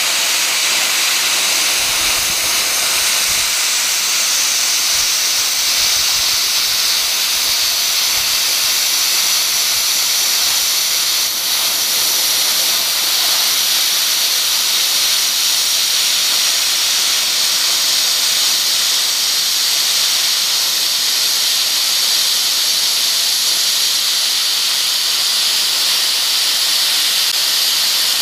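PrimeWeld CUT60 plasma cutter's torch cutting through a 1-inch stack of four quarter-inch steel flat bars at its full 60 amps: a loud, steady hiss of the plasma arc and air jet.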